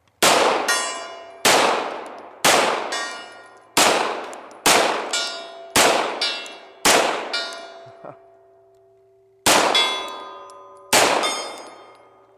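Nine shots from a Beretta 92FS 9mm pistol, about one a second with a short pause before the last two. Each shot is answered by a long-range steel gong ringing with a clang that fades slowly, showing a hit.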